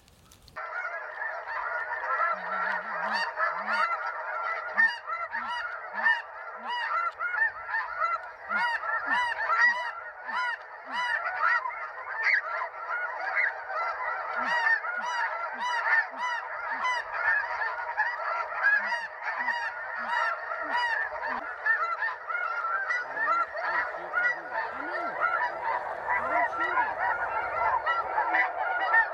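A large flock of snow geese calling in flight: dozens of overlapping high, yelping honks in a dense, continuous chorus.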